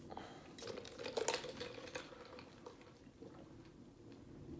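Faint chewing and wet mouth sounds, with a few small clicks in roughly the first two seconds, as a plastic fork carries food to the mouth.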